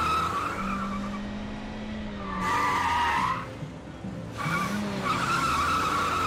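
Tyre squeal from a Ford Focus Mark II wheelspinning as it pulls away hard. It comes in three stretches: at the start, again about two and a half seconds in, and from about four and a half seconds on.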